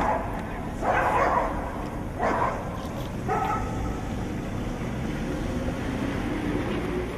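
A dog barking four times, the short barks about a second apart, then steady background noise.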